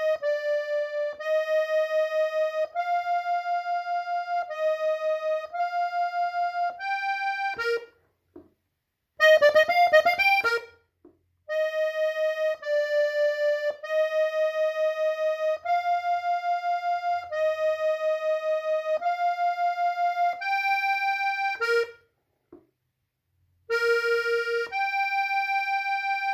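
Hohner button accordion in F playing a slow single-note melody on the treble buttons, each held note wavering with a quick pulse. The phrase stops twice briefly, and about nine seconds in a fast flurry of notes is played.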